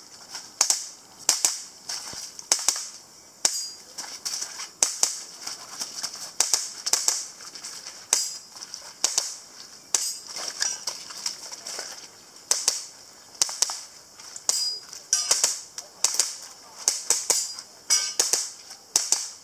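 Airsoft pistol firing dozens of sharp, light shots in quick pairs and short strings, with uneven gaps between strings as the shooter moves between targets.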